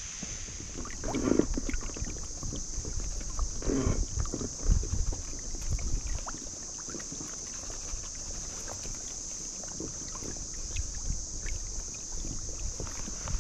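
Water splashing and lapping around a float tube as the angler's swim fins paddle it along, with two louder splashes about one and four seconds in, over a low rumble of wind on the microphone.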